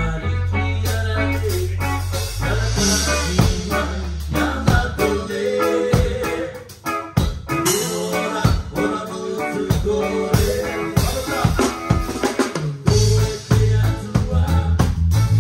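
A live band playing, heard from right beside the drum kit: close drums with snare hits over a bass line, with guitar and keyboard. The bass drops out about five seconds in, leaving mostly drums, and comes back near the end.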